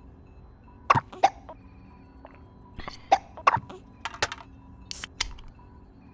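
Cartoon sound effects: a string of short, sharp squeaks and pops, with a brief hiss about five seconds in.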